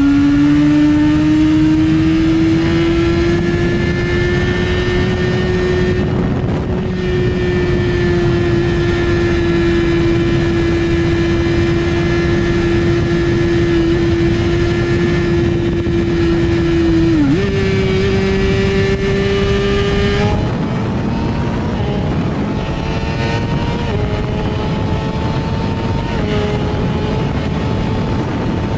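Suzuki GSX-R1000R's inline-four engine at high revs under full throttle, its pitch climbing slowly as the bike gains speed, with a few brief drops in pitch at upshifts in the second half. A heavy rush of wind noise runs under it.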